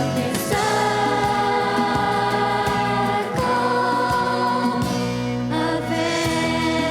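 Youth choir singing over instrumental accompaniment, sustained chords with a steady bass line.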